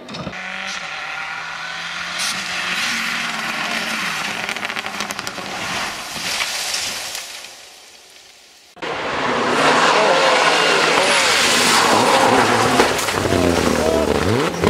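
Rally car engine noise and tyres on gravel: a steady engine drone for the first seven seconds, dropping to a quiet dip. Just before nine seconds in it jumps abruptly to a louder stretch of an engine revving up and down with skidding, as a car slides off the road.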